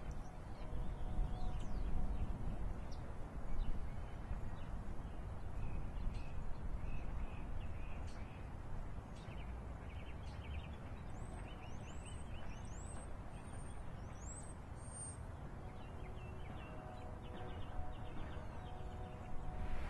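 Outdoor ambience of small birds chirping and trilling, with a run of about six quick rising chirps in the middle, over a steady low background rumble.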